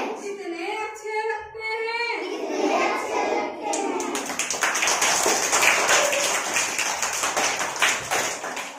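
Children singing a rhyme, one voice holding a long note in the first two seconds; from about four seconds in, a group of children clapping their hands rapidly and unevenly.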